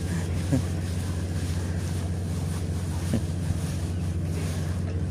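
A motor running with a steady low drone that holds one even pitch without rising or falling.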